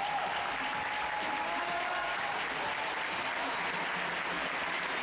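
Audience applauding steadily after a cha-cha-cha dance.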